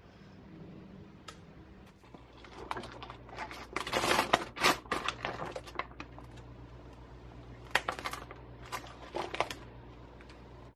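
Plastic bag of frozen shrimp crinkling and rustling as it is handled, in irregular bursts that are loudest around the middle, over a steady low hum.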